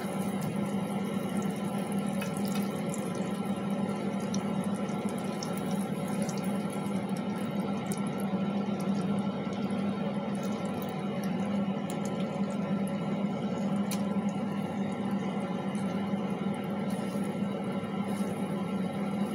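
Marinated chicken cutlets sizzling steadily in hot oil in a frying pan, with a few faint light clicks.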